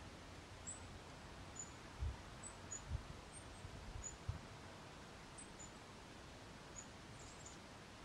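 Faint outdoor ambience: about a dozen brief, high, thin chip notes of small birds scattered through, over a steady hiss, with a few low dull thuds around the middle.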